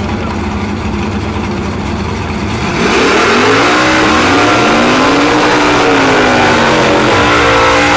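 Drag-car engines idling, then revving hard from about three seconds in as two cars do wheelspin burnouts, the revs rising and falling over a hiss of spinning tyres.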